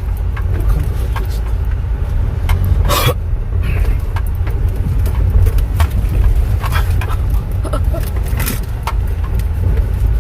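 Road noise inside a 2014 Kia Sportage's cabin driving over a very rough road: a steady low rumble with scattered short knocks and clicks as it goes over the bumps. It is a test drive listening for suspension or chassis noises, and the car is judged to have none.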